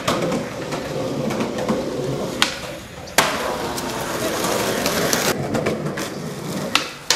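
Skateboard wheels rolling over rough asphalt, with sharp clacks of the board: one about two and a half seconds in, a louder one about three seconds in where the rolling picks up, and two close together near the end.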